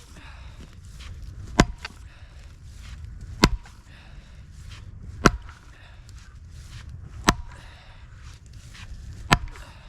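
Splitting maul striking a tough crotch-wood firewood round five times, about one blow every two seconds, with hard breathing between swings.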